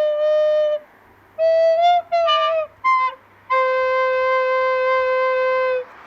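Flute playing a slow melody: a held note that stops just under a second in, a short phrase of quicker notes, then a long, lower held note that ends shortly before the close.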